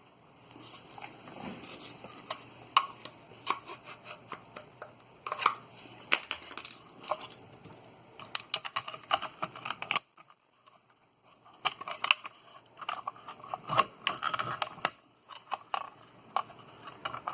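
Electrical wires being worked through an outlet box: irregular rustling, scraping and clicking of cable against the box, with a short pause about ten seconds in.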